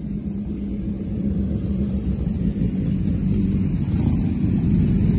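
Several sport motorcycles rolling past at low speed, their engines giving a low rumble that grows steadily louder as the bikes approach.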